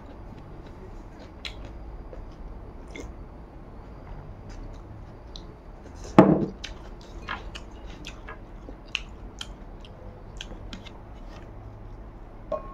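Close mouth sounds of a person eating rice with the fingers: chewing with many small wet clicks and smacks. About six seconds in there is one loud clunk, the glass bowl knocked or set down on the wooden table.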